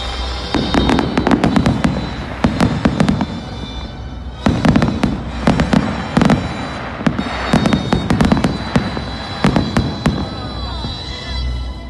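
Aerial fireworks bursting: rapid volleys of sharp bangs and crackles, coming in three clusters with short lulls between, thinning out near the end.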